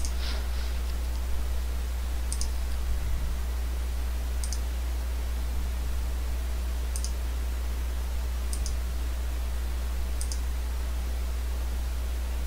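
A computer mouse clicking five times, about one click every two seconds, as it pages through photos in a viewer, over a steady low electrical hum.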